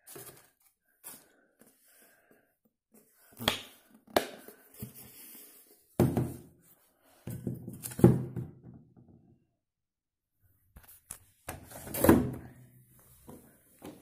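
Handling noises around a front-loading washing machine: a series of irregular knocks and thunks as plastic bottles and containers are put down and moved, the loudest about halfway through and again near the end.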